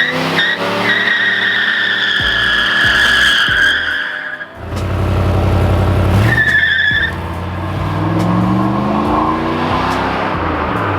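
V8 car revving hard in a burnout with tires squealing. The engine note climbs at the start and again past the middle, and a steady high tire squeal holds for about three seconds from a second in, with a short squeal again near the middle.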